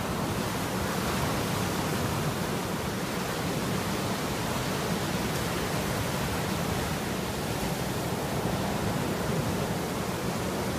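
Irish Sea surf breaking and washing up a flat sandy beach: a steady rushing noise with no single crash standing out.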